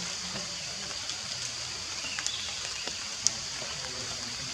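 Steady rain hiss with scattered drip ticks and one sharper tap about three seconds in.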